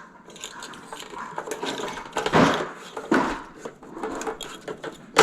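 Irregular clicks, knocks and clatter of small plastic and metal parts being handled: graphics card fans and their screws coming off the card, with the loudest knock near the end.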